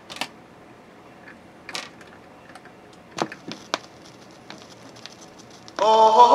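BSR C129 record changer cycling between 45s: a series of separate mechanical clicks and clunks as the tonearm swings away and returns to the record. Near the end, music from the next record starts playing through the speakers.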